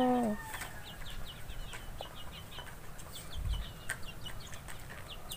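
Chickens peeping: many short, high calls repeating a few times a second, with a couple of faint knocks in the middle.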